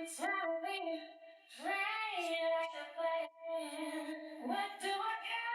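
A high voice singing without clear words, holding notes and sliding up and down in pitch, in several short phrases.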